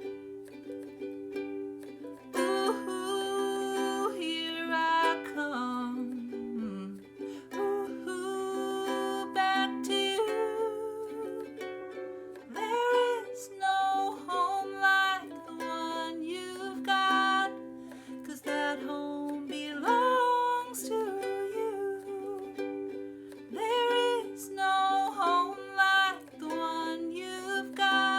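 Ukulele playing an instrumental passage of a song, with plucked notes and chords throughout.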